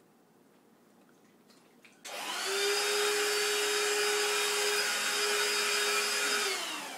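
Handheld Hoover vacuum switched on about two seconds in, spinning up and running with a steady whine, then winding down as it is switched off near the end.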